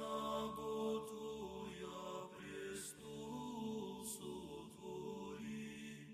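Soft background chant-like singing with long held notes that shift slowly in pitch.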